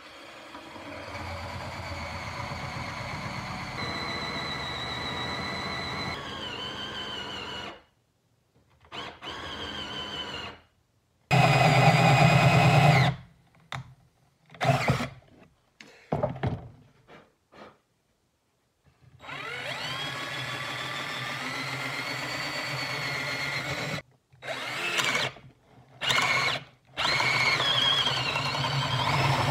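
Black+Decker 20V MAX cordless drill boring into a wooden table part. The motor whines in repeated trigger pulls: a long steady run, then a string of short bursts, then another long run that spins up with a rising pitch.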